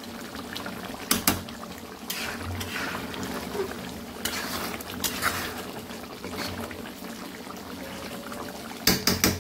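Chicken curry gravy stirred with a ladle in a pan while it simmers: thin gravy sloshing and running back off the ladle into the pan. There are several short scrapes and knocks of the ladle against the pan, the loudest near the end.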